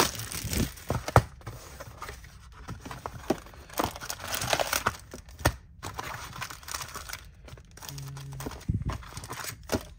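Clear plastic shrink-wrap being torn and crumpled off a trading-card box, followed by the cardboard box being opened and foil card packs rustling as they are pulled out.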